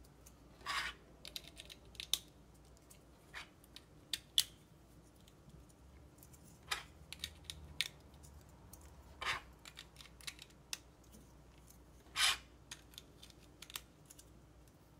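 Plastic LEGO pieces clicking and clattering as they are handled, pressed together and slid onto an axle: irregular small clicks with a few short, louder scrapes.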